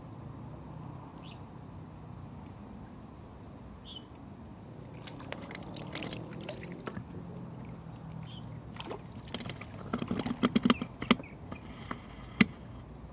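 Water splashing and sloshing over a steady low rumble, with a run of sharp clicks and knocks about ten seconds in and a single sharp click near the end.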